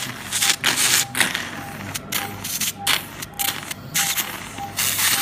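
Surgical suction sucking in irregular hissing bursts as it draws clotted blood from an extradural haematoma. Under it, a patient monitor beeps steadily about every two-thirds of a second.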